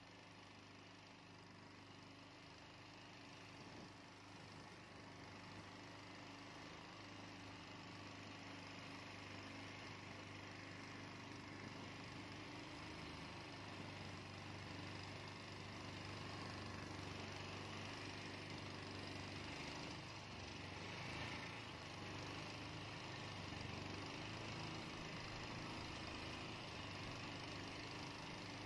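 Faint steady motor hum with a low drone, growing slowly louder through the first half and then holding steady.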